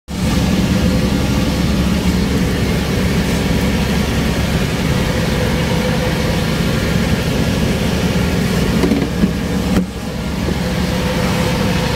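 A boat's engine running steadily, a loud low hum with a constant drone, dipping briefly about ten seconds in.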